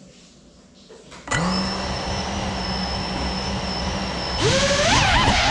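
Brushless motors of an FPV drone spinning with no propellers fitted, because the propellers were forgotten. A steady motor whine starts abruptly about a second in. About three seconds later it turns louder, its pitch rising and wavering.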